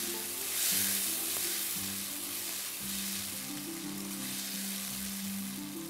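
Tomato and yogurt sauce with garlic and spices sizzling in hot oil in a frying pan while it is stirred with a silicone spatula. Soft background music with a few held notes plays underneath.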